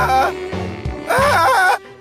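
Cartoon background music with a character's wordless voice sounds over it, twice.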